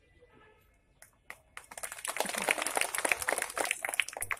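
Audience clapping: applause starts about a second and a half in and builds into a dense, steady patter of many hands.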